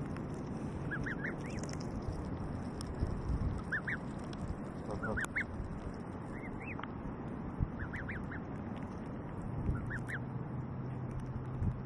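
Canada goose goslings peeping: short high chirps, each rising and falling, in quick clusters of two or three every second or two. About five seconds in, a brief lower call from an adult Canada goose.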